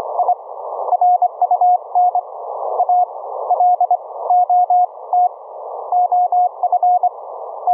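Morse code (CW) signal on the 40-metre band received through an Elecraft K3: a steady tone of about 700 Hz keyed in dots and dashes. Band hiss confined to a narrow filter passband fills the gaps between characters and swells as the receiver's gain recovers.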